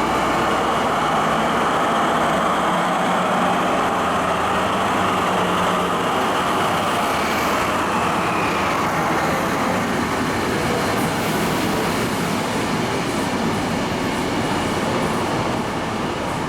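Train running past or through the station: a loud, steady, continuous rail and engine noise with a low steady hum, holding at an even level throughout.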